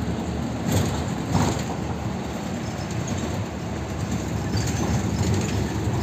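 City bus running along a snowy road, heard from inside the cabin: a steady engine and road rumble, with two brief knocks or rattles in the first second and a half.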